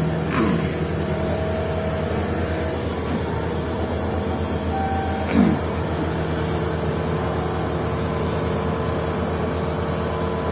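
Caterpillar 120K motor grader's diesel engine idling steadily, heard from the operator's cab. Two short squeaks falling in pitch cut through it, one just after the start and a louder one about five seconds in.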